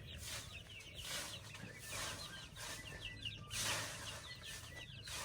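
A flock of chickens calling, many short high calls overlapping continuously, over a steady low hum.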